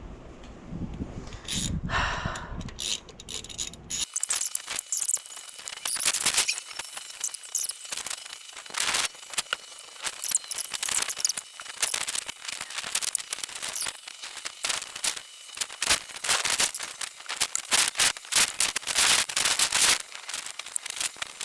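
A dense run of sharp clicks and scrapes from hand tools working on metal engine parts. A faint steady high tone sits under it from about four seconds in until past the middle.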